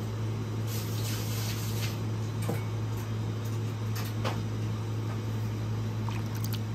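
A steady low hum with a faint hiss for a second or so early on and a few light clicks.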